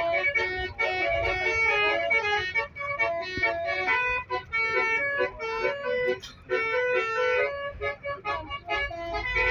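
Indonesian "telolet" bus horn playing a tune: a quick run of changing horn notes, one after another, over a low rumble.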